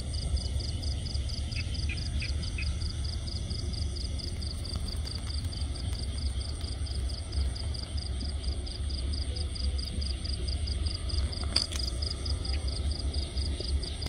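Night insect, likely a cricket, chirping in a quick, even pulse that repeats several times a second without a break, over a steady low rumble of wind or handling noise on the microphone.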